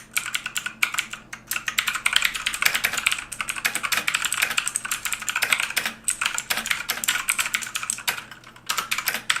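Typing on a mechanical keyboard with Outemu blue clicky switches: a fast, continuous stream of sharp clicks, with a brief lull about eight seconds in.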